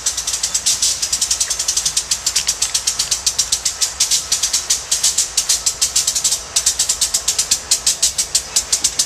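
Freight train led by a GE ES44DC diesel locomotive rolling slowly past close by, with a rapid, even high-pitched clicking of about eight strokes a second that breaks off briefly about six and a half seconds in.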